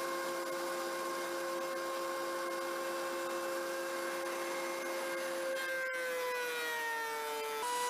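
Benchtop thickness planer running with a steady motor whine. About five and a half seconds in, its pitch sags as the ash board feeds in and the cutterhead takes it under load.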